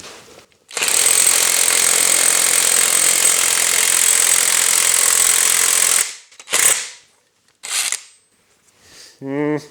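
Parkside cordless impact wrench hammering steadily for about five seconds, then two short bursts, on a seized 36 mm nut that it fails to break loose.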